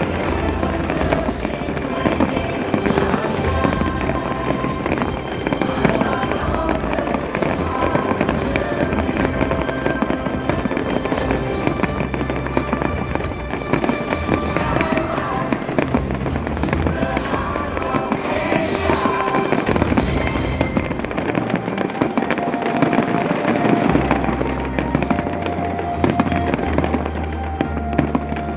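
Fireworks bursting and crackling in quick succession, over music.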